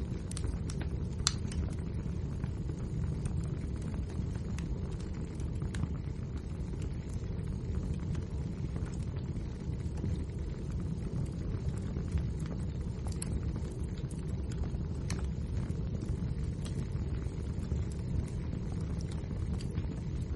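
Wood fire burning in a fireplace: a steady low roar of flames with scattered sharp crackles and pops, the loudest about a second in.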